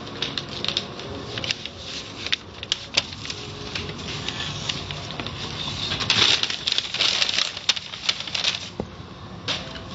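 Automatic car wash tunnel heard through its viewing window: water spray pattering and spinning cloth brushes slapping against the glass and the car in a rapid, irregular clatter over a low machinery hum. The clatter is busiest from about six seconds in to near the end.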